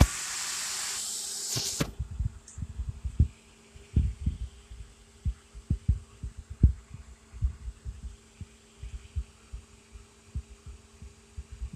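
Xbox 360 cooling fan on 12 volts, switched on with a click: a loud rush of air for about two seconds, then a steady hum with irregular low thumps as its airflow buffets the microphone.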